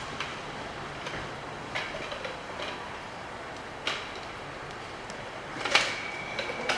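Foot pump being worked to inflate a BMX inner tube and find its puncture: about six irregular clunks and puffs of air, the strongest near the end.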